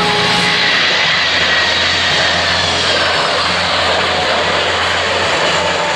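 Jet engines of a low-flying Boeing 747 passing overhead: a loud, steady rush with a faint whine sliding slowly down in pitch.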